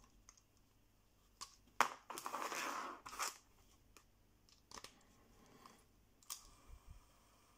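Quiet handling noises of a portable cassette player and a 3.5 mm audio cable: several small clicks and a rustling scrape about two seconds in, as the cable's plug is moved and pushed into the Walkman's jack.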